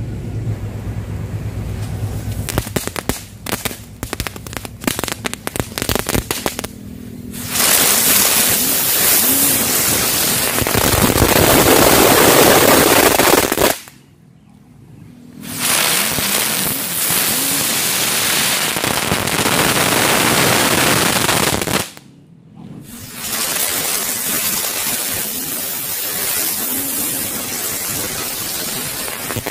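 A chili firecracker goes off as a fast run of sharp cracks. Then lotus ground-spinner fireworks hiss loudly as they spin and spray sparks, in three long spells with two short breaks, one around the middle and one about two-thirds through.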